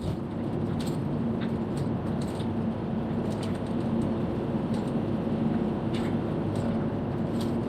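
Campervan on the move: steady engine and road noise with a few held low tones, and scattered light clicks or rattles.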